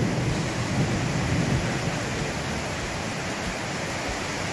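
Steady heavy rain, a dense hiss, with a low rumble that is strongest in the first second or two.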